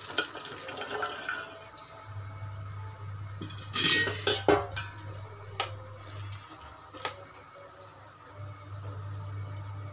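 Cauliflower florets tipped from a bowl into a metal pan of boiling salted water, splashing, with a loud metal clatter against the pan about four seconds in. A ladle then stirs the florets, knocking lightly against the pan a couple of times.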